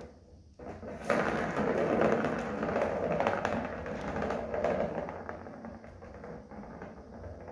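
Plastic ball rolling around the circular track of a cat scratcher toy after a kitten bats it, a rattling rolling rumble that starts about a second in and slowly fades as the ball slows.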